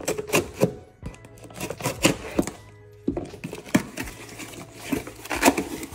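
A small cardboard box being opened by hand, its flaps pulled back, giving an irregular run of short scraping, rustling and crinkling noises, with background music underneath.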